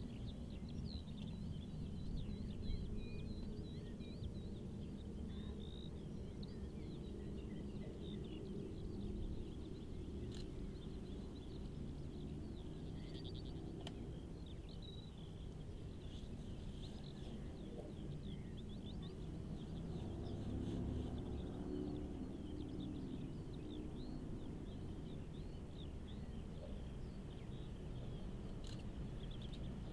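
Birds singing over a faint, steady low rumble from a distant, approaching three-cylinder Peppercorn A1 Pacific steam locomotive, 60163 Tornado, working hard uphill with a 13-coach train.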